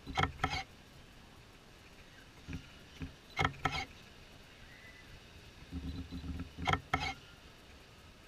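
Spinning balloon ride in motion, its mechanism giving a short double clank with a brief squeaky ring three times, about every three and a half seconds, over a faint steady background.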